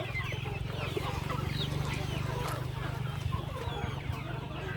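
A flock of country chickens clucking and cheeping, many short calls overlapping, over a steady low hum.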